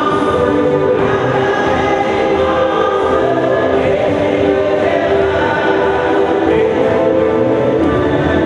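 A choir singing a hymn, many voices together holding sustained notes.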